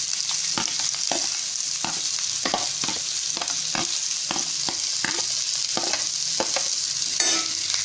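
Sliced onions sizzling in hot oil in a frying pan, a steady hiss, while a steel spatula scrapes them off a plastic tray and stirs them. The spatula makes short scraping clacks about two or three times a second, with a sharper clack near the end.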